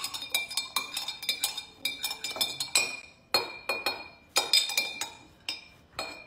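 Metal spoon clinking against the inside of a glass mason jar of water as it is stirred: a quick, steady run of ringing clinks, several a second, with a few short pauses.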